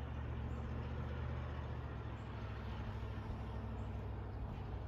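Engine of a vehicle plowing snow, running steadily as a low, even hum.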